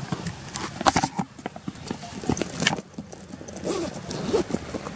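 Handling noise: irregular clicks and knocks with rustling as a camera is moved about and set down while a bag is searched.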